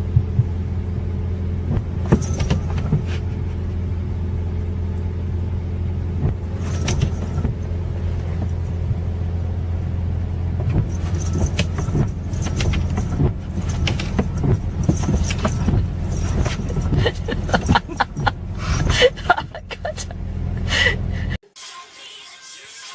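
A steady low mechanical hum, with scattered clicks and knocks over it, cuts off suddenly near the end.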